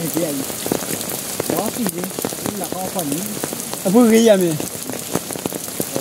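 Rain falling, with many sharp drops striking close by over a steady hiss, while people talk; one voice calls out loudly about four seconds in.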